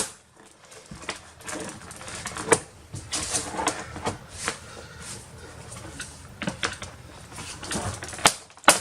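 Snap-fit plastic clips of a Dell Inspiron 3459 all-in-one's back cover clicking and creaking as the cover is worked loose, with two louder snaps near the end.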